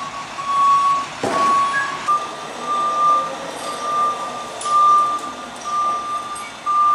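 Backup alarm beeping steadily, about one beep a second, with a single clunk about a second in.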